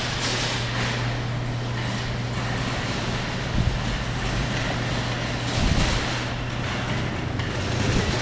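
Claw machine running as the claw is steered and dropped: a steady motor hum over a noisy background, with a couple of soft knocks.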